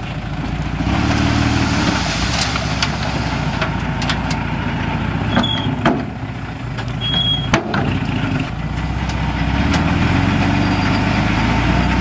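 Diesel engine of heavy earthmoving machinery running, growing louder about a second in and again near the end as it takes more load. Several sharp metallic clanks and two short high squeaks come in the middle.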